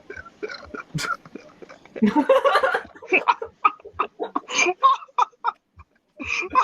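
People laughing in short bursts, with a loud outburst of laughter about two seconds in.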